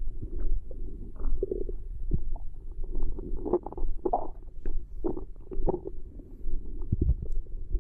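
A girl's stomach growling: an irregular run of short gurgles and low rumbles, with a few higher squeaky gurgles among them.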